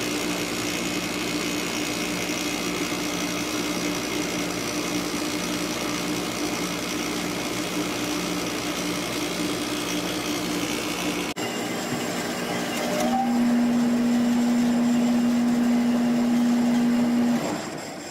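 Sharp 8500 BTU window air conditioner running with a steady fan rush and a low hum. About eleven seconds in the lowest hum cuts out abruptly, a louder steady hum follows for a few seconds, and near the end the unit winds down as it is switched off.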